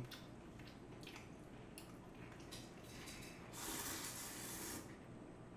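A person slurping thin wheat noodles in broth (janchi-guksu): one long slurp a little past the middle, lasting about a second. Before it, a few faint short clicks and wet sounds as the noodles are lifted from the broth.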